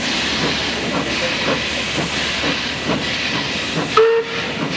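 Steam locomotive working a train, its steam hissing steadily under slow exhaust chuffs about two a second. About four seconds in there is a brief, loud whistle toot.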